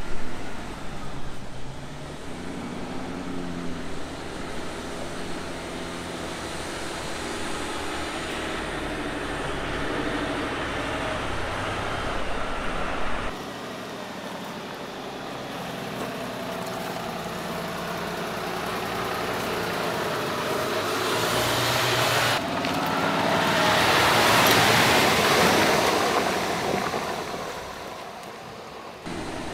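Mercedes-Benz Arocs 8x8 dump truck's diesel engine running under load off-road, its pitch rising and falling, with abrupt changes in sound twice. In the last third a loud rushing noise swells and fades over the engine.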